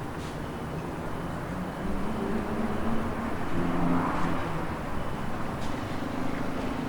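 Outdoor ambience: a continuous rush of noise with a low hum underneath, swelling to a peak about four seconds in and then easing off.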